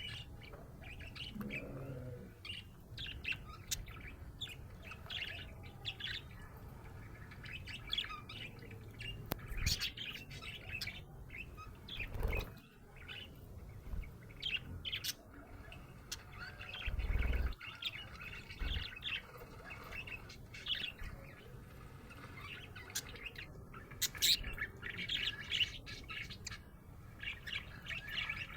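Budgerigar chirping and chattering in a steady stream of quick, short high chirps and trills. Twice a dull low thump cuts in, about twelve and seventeen seconds in.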